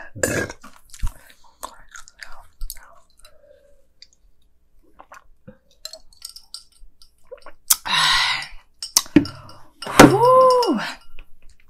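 Close-miked mouth sounds of someone finishing eating: soft chewing and small lip smacks and clicks. A breathy rush of air comes about eight seconds in, and a short hummed sound rising and falling in pitch comes near the end.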